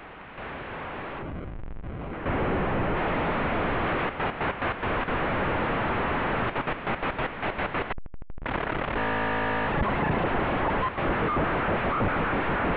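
Distorted glitch-noise music: a dense wall of harsh noise that stutters with rapid cut-outs about four to eight seconds in, drops briefly to a thin buzz, then comes back with a short burst of held tones under the noise.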